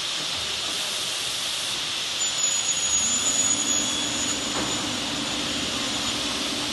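Kaban SB 3011 profile machining centre running: a steady hiss throughout, with a high-pitched spindle whine that starts about two seconds in and stops near the end. A low hum joins about a second after the whine starts.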